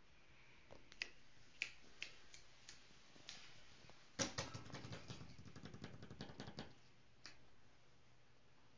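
Small dog moving about on a rug beside a plastic-covered sofa: faint scattered clicks and rustles, then a denser run of quick clicking and rustling about four seconds in, lasting around two and a half seconds.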